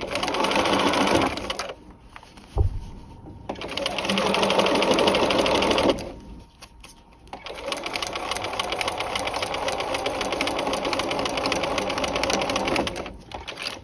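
Sewing machine stitching a sleeve seam in three runs of fast, even needle strokes, stopping briefly between them. A short low thump comes in the first pause.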